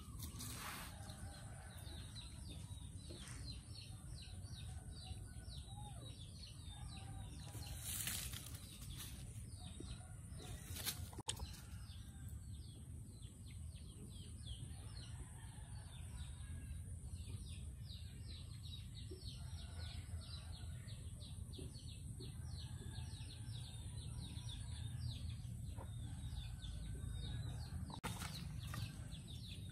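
Outdoor ambience: small birds chirping repeatedly in the background over a steady low rumble and a faint high hiss, with a few brief rustles and scuffs.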